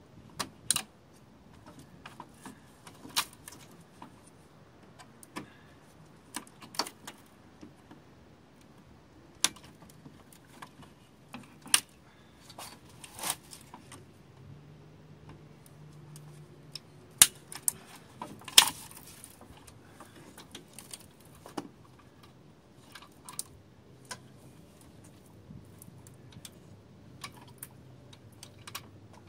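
Hand tools and metal fasteners clicking and clinking irregularly against a car radiator's fittings and brackets during removal of the radiator and cooling fan. The loudest clicks come about two-thirds of the way through.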